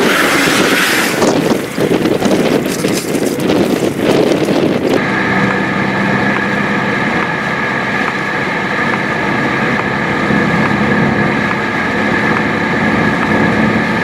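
Strong gusty wind buffeting the microphone, then, about five seconds in, an abrupt cut to the steady drone of a vehicle driving on a snowy road, heard from inside the cabin, with an even droning hum.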